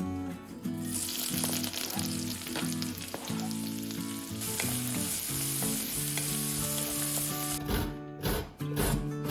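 Food frying in a hot pan, a steady sizzle that starts about a second in and cuts off near the end, followed by a few sharp knocks.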